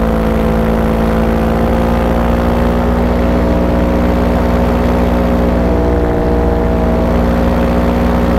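Paramotor engine and propeller running steadily in flight, its pitch rising slightly in the first few seconds.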